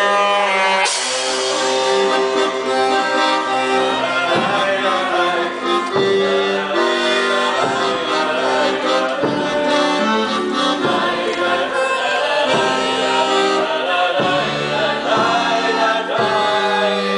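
Live stage band music: a melody of held notes with voices singing along, and a drum struck every second or two.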